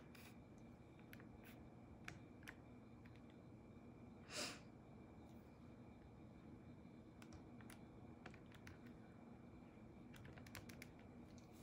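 Near silence: quiet room tone with faint, scattered small clicks and taps, and one short soft rush about four seconds in.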